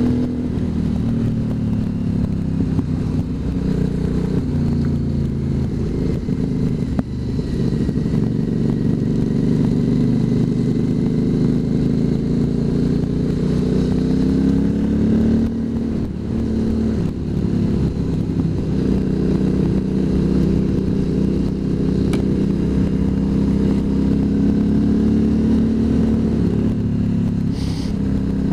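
Motorcycle engine running under way, heard from the bike itself, its note rising and falling with the throttle and briefly dropping about 7 and 15 seconds in.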